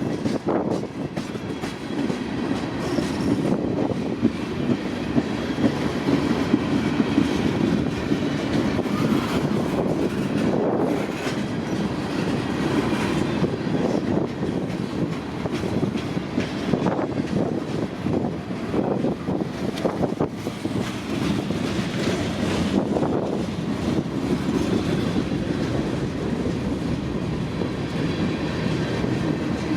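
Freight train's cars rolling steadily past, with a continuous rumble and the wheels clacking over the rail joints.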